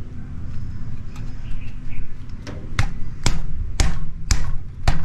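Sharp knocks, about two a second, starting about halfway through, as a new footpeg is worked onto its mount on a motorcycle. A low steady hum runs underneath.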